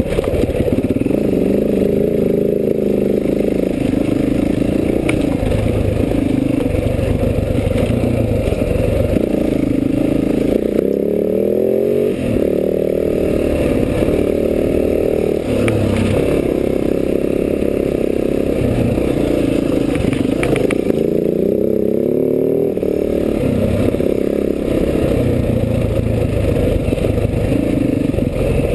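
Enduro dirt bike engine running under load while ridden over rough ground, its revs repeatedly climbing and dropping back as it is accelerated and shifted. A few sharp knocks and clatter from the bike over rocks.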